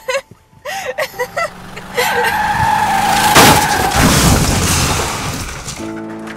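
Staged car crash: tyres squealing in a skid for about a second and a half, then a loud impact about three and a half seconds in, its crash noise fading away over the next two seconds. Short bursts of laughter come just before the skid.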